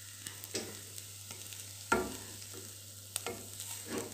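Spatula stirring a dry greens-and-grated-coconut stir-fry in a metal pan: four separate scrapes, the loudest about two seconds in, over a faint hiss.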